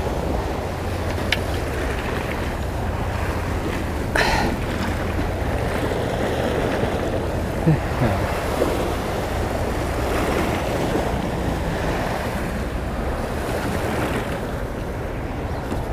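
Sea waves washing against shoreline rocks, with wind buffeting the microphone. A few brief clicks and knocks stand out, the loudest about eight seconds in.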